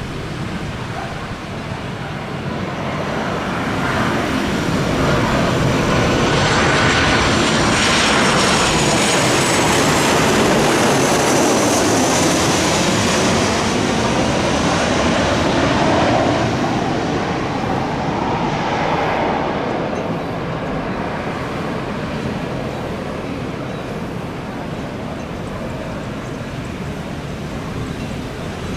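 Airplane landing: its engine noise swells about four seconds in, is loudest for roughly ten seconds with a high turbine whine, then fades back to a steady rush.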